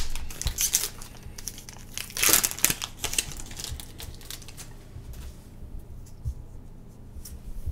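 Foil booster-pack wrapper crinkling as it is handled and torn open. The crinkling is loudest at the start and again around two to three seconds in, then fades to quieter rustling.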